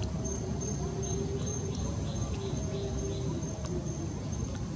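Steady high-pitched insect drone, cricket- or cicada-like, over a constant low background rumble, with a few short faint tonal notes.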